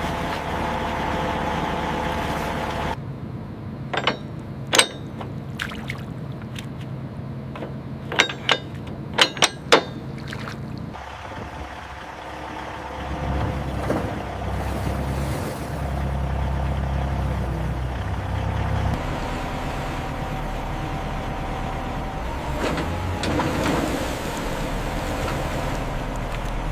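Heavy vehicle or machinery engine running steadily, with a series of sharp clanks between about four and ten seconds in.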